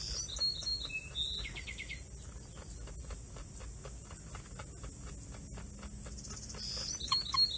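Marmosets calling close to the microphone: high-pitched chirps and short trills in the first two seconds and again near the end. In between, faint rapid clicks and rustles, with fur brushing the phone.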